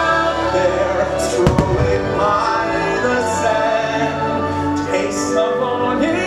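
Fireworks show music with singing playing throughout. A firework goes off with a sharp bang about a second and a half in.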